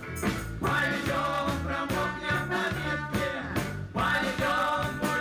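A live band plays with accordion, electric guitar and drums over a steady beat. The music drops out for a moment about four seconds in, then comes straight back.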